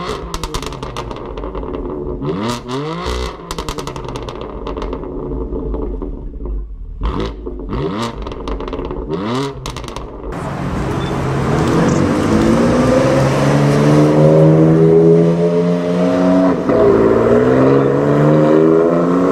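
BMW M4 GTS's twin-turbo straight-six revved in short blips at standstill, the pitch rising and falling quickly, with sharp exhaust pops between blips. About ten seconds in the car pulls away under acceleration, the engine note climbing steadily and louder, with a brief dip for an upshift near the end before it climbs again.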